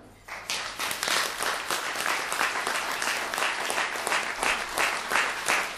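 Audience applauding: dense hand-clapping that starts suddenly just after the beginning and carries on steadily.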